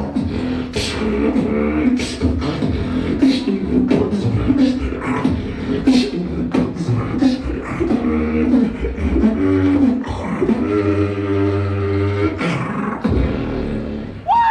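Solo beatboxing: sharp snare and kick sounds at a steady tempo over hummed bass lines that move in pitch. From about ten and a half to twelve seconds in, a long buzzing bass note is held.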